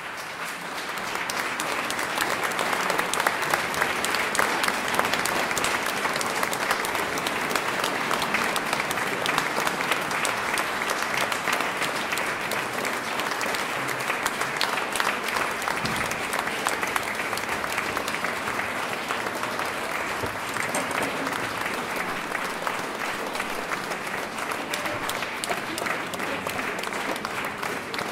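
A large audience applauding steadily, a dense patter of many hands clapping, welcoming the chamber orchestra as it takes the stage. It swells to full strength within the first second and eases slightly near the end.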